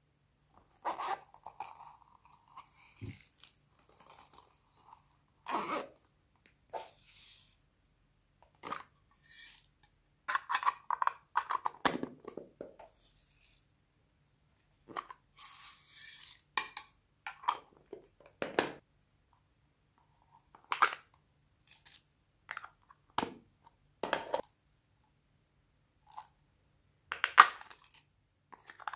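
Small plastic sequin containers being handled, opened and emptied over a bowl of slime: scattered clicks, taps and rustling, with the loudest cluster near the end as the lid comes off and the sequins are poured out.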